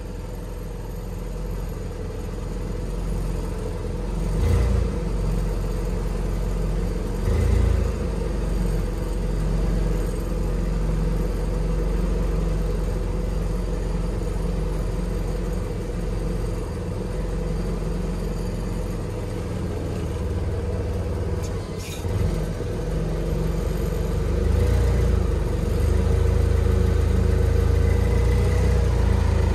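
Forklift engine running as the forklift is driven, swelling briefly about 4 and 7 seconds in and running louder from about 25 seconds in.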